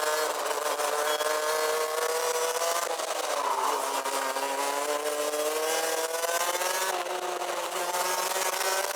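Rotax Max DD2 125 cc two-stroke kart engine heard onboard at racing speed, revving up through a corner exit, falling off about three seconds in, then climbing again. Its pitch drops suddenly about seven seconds in and rises once more.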